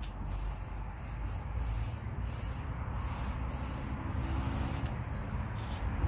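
Repeated rubbing strokes of paint being worked by hand along the ribs of a corrugated steel roller garage door, about one or two strokes a second, over a low steady rumble.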